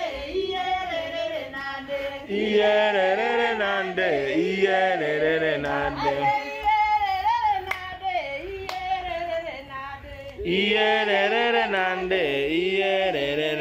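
A group of women singing a song together in chorus, phrase after phrase, with a brief lull about ten seconds in.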